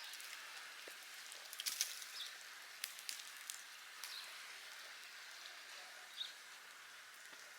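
Snow and ice melting off trees: scattered light drips and ticks over a faint steady hiss.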